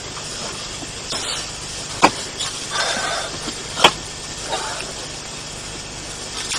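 Cigarette lighter struck twice: two sharp clicks about two seconds apart, with a brief hiss between them, over steady background hiss.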